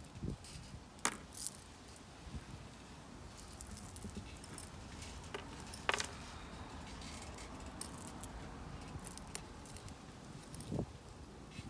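Small pebbles clicking and rattling against each other in a palm and against the mug as they are picked out and pressed in around succulents as a top dressing. Scattered light clicks, a few sharper ones, with a couple of soft dull bumps.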